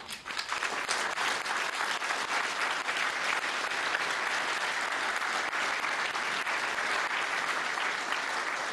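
Audience applauding: many people clapping, breaking out all at once and holding steady.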